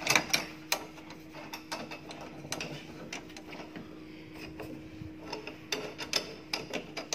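Irregular small metal clicks and rattles as a screwdriver works a screw on a steel door lock's handle faceplate and the loosened faceplate and lever are moved about.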